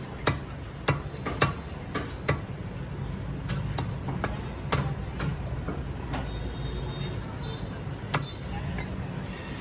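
Heavy cleaver chopping chicken pieces on a wooden log chopping block: a series of sharp, irregular chops, several close together in the first couple of seconds and then sparser, over a low steady background hum.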